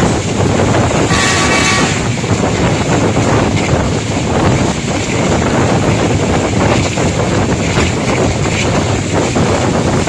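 Steady rushing noise of a passenger train running at speed, heard from an open door or window, with wind buffeting the microphone. About a second in, a horn sounds once for just under a second.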